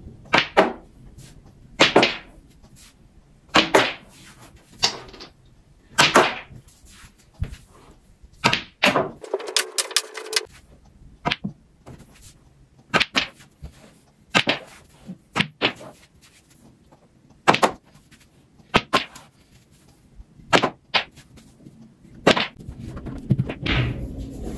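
Pool cue tip striking the cue ball and billiard balls clacking together on a mini pool table, a sharp clack every second and a half or so, about fifteen shots in all.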